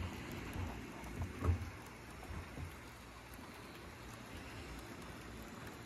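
HO-scale model trains running on the layout: a steady, even rushing of wheels and small motors on the rails, with a few soft knocks in the first two and a half seconds.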